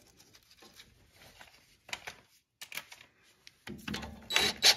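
Faint clicks of a bolt being handled, then about three and a half seconds in a cordless DeWalt impact driver runs in a small bracket bolt in short bursts.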